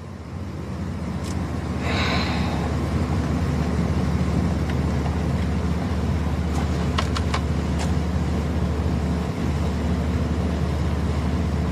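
Steady low rumble of a car's engine and road noise heard from inside the cabin while driving, swelling over the first couple of seconds and then holding even.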